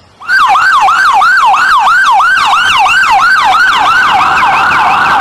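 Ambulance's electronic siren on a rapid yelp, about three rising-and-falling sweeps a second, speeding up into a fast warble a little past four seconds in.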